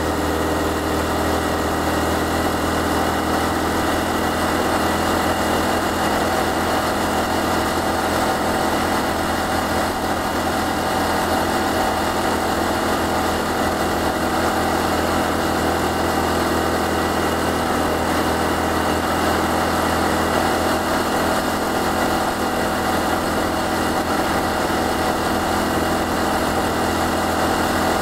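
Honda Cross Cub 110's air-cooled single-cylinder four-stroke engine running steadily at cruising speed, heard from the rider's position with a steady rush of wind.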